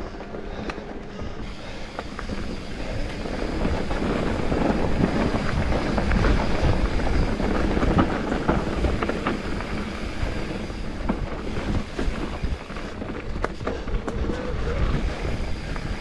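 Specialized Turbo Levo electric mountain bike riding down a dirt trail: constant tyre and wind noise with frequent rattles and knocks from the bike over bumps, growing louder toward the middle.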